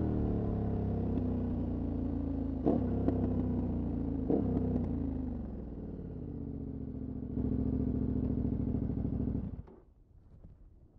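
KTM 1190 Adventure's V-twin engine through a Remus aftermarket exhaust, slowing with three sharp snaps a few seconds in. It quietens, then runs louder and steady again from about seven seconds in, and cuts off abruptly near the end.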